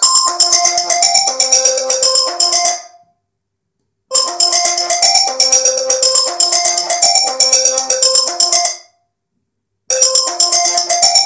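An iPad Air 2's speaker playing a short chiming, marimba-like ringtone phrase on a loop: about four seconds of notes, a sudden stop for a second or so, then the same phrase again, with clicks running through the notes. This is the kind of odd playback the tablet shows now and then, mostly after a reboot or a battery-drain shutdown.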